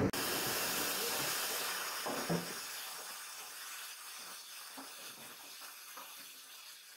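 Plastic granules pouring from a sack into a machine's feed hopper: an even rushing hiss that fades steadily as the pour goes on, with a single thump about two seconds in.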